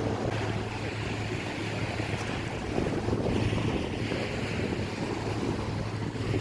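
Wind buffeting the microphone over sea water washing and surging, with a steady low hum underneath.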